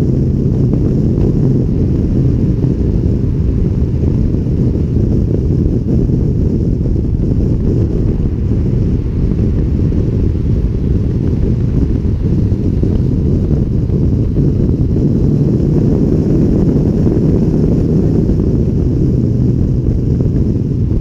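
Wind buffeting a motorcycle-mounted camera's microphone at motorway speed, over a steady low drone of engine and road noise.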